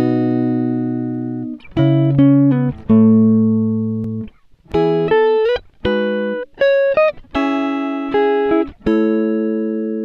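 Background music: a plucked guitar playing a slow run of single notes and chords, each ringing out and fading before the next.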